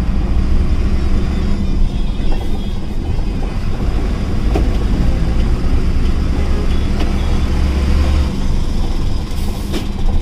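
BharatBenz 4023 truck on the move: its diesel engine and tyres make a steady low rumble, with a couple of faint knocks.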